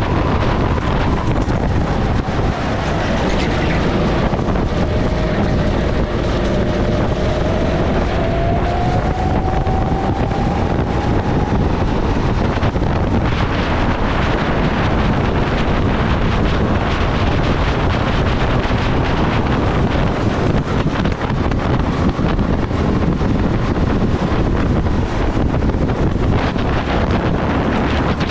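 Heavy wind buffeting on the microphone of a kart at racing speed, over the kart's engine, whose faint note drops and then climbs again partway through.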